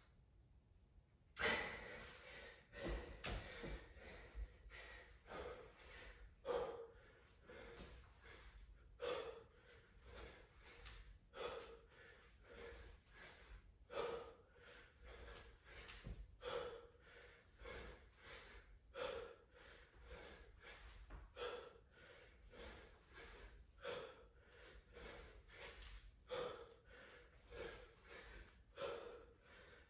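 A man breathing hard from exertion during a set of dumbbell snatches: faint, forceful exhales about every two and a half seconds, with quieter breaths between. The breathing starts about a second and a half in.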